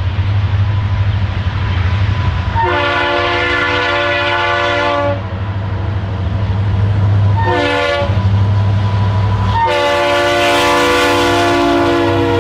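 Train horn sounding three times, long, short, long, each blast several steady tones at once. A steady low rumble runs underneath.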